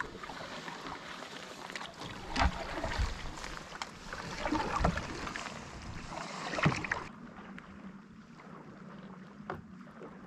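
Creek water lapping and trickling against the thin ice at the bank's edge close to the microphone, with a few sharper splashes and ticks among it, quieter and duller in the last few seconds.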